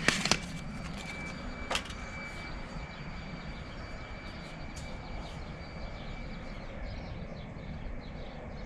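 Steady low background rumble, with a sharp click at the very start and another just under two seconds in.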